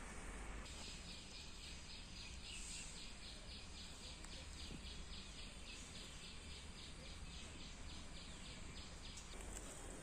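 A high-pitched call from a bird or insect, pulsing about three times a second, starting about a second in and stopping near the end, over faint steady outdoor background noise.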